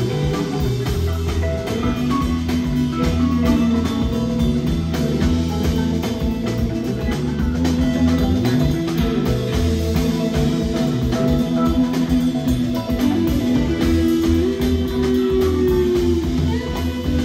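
Live rock band playing an instrumental passage: guitar over bass and a drum kit keeping a steady beat.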